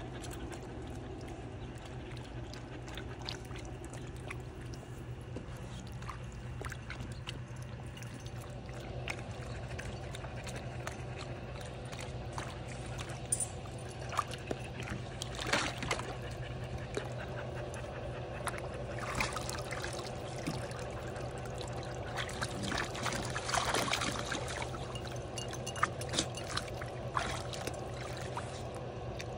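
Water sloshing and splashing in a plastic kiddie pool as puppies move about in it, with a few sharper splashes in the second half over a steady low hum.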